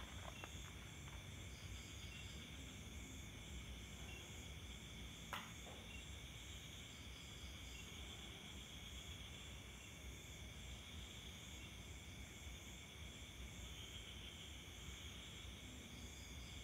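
Faint, steady chirping of night insects, with one short click about five seconds in.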